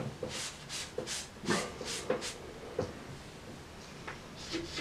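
Chalk writing figures on a blackboard: a quick run of short scratching strokes and taps in the first two and a half seconds, then a couple more near the end.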